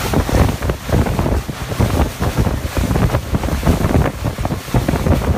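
Strong wind buffeting the microphone: a loud, gusty rumble that surges unevenly.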